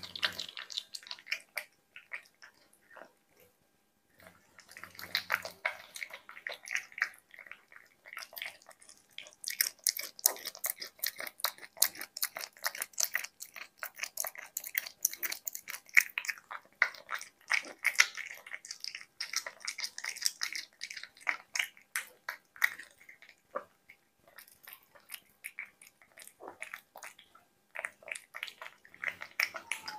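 Cat chewing and smacking wet chunks of duck breast from a bowl, a rapid run of moist clicks with a short pause a few seconds in.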